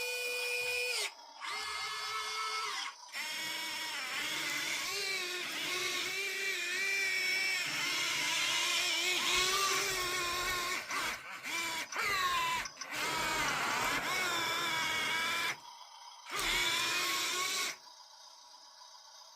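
Small electric motors of 1:50 scale RC construction models whining as they are driven, the pitch wavering up and down with load and the motors stopping and starting several times before cutting out near the end.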